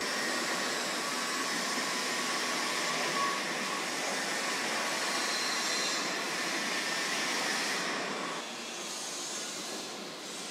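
Car assembly plant ambience: a steady mechanical hiss and hum of factory machinery, turning a little quieter about eight seconds in.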